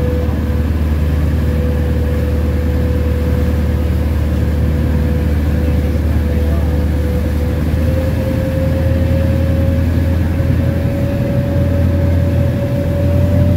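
Ferry boat's engine running under way: a steady low drone with a whine on top that creeps slightly up in pitch from about eight seconds in.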